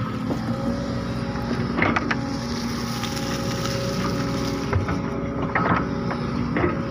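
An engine running steadily with a constant hum, with a few short knocks and clicks over it.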